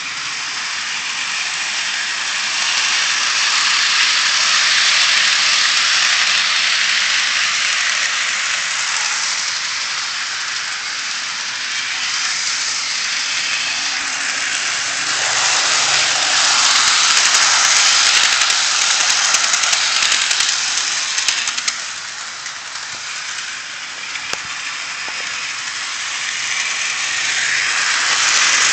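Model train running on track, a Liliput BR52 locomotive hauling a Rivarossi K5 railway gun: a steady hissing rattle of wheels rolling over the rails. It swells each time the train passes close, about three times, and fades between.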